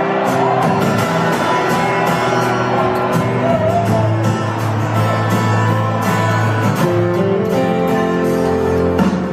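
Live band music: a strummed acoustic guitar with a steady beat and a male singer's voice, loud and continuous.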